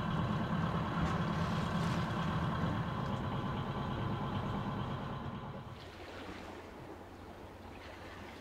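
A sailboat's inboard diesel engine running steadily while motoring, a low even hum that fades away about six seconds in, leaving only faint background noise.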